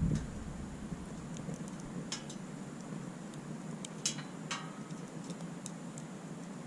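Wood campfire crackling: a steady low rumble with scattered sharp pops, the loudest about four seconds in.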